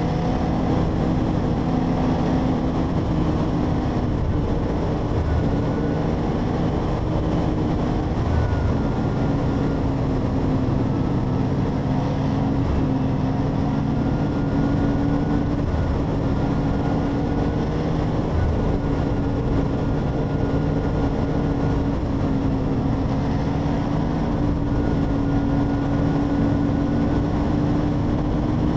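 Motorcycle engine running steadily at highway cruising speed, with wind and road noise over it.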